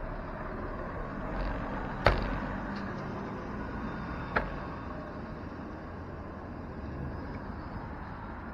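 Steady rush of wind and road noise from a bicycle ride, broken by a sharp knock about two seconds in and a smaller one a couple of seconds later.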